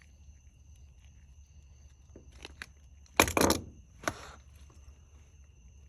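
Hard parts being handled: a couple of light clicks, then a loud short clatter about three seconds in and a single knock about a second later, as the washer suspension rod pieces are knocked together and moved.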